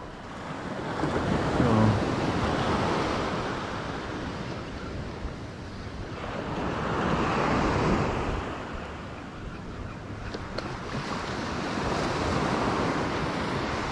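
Ocean surf washing onto the shore, swelling and fading every few seconds.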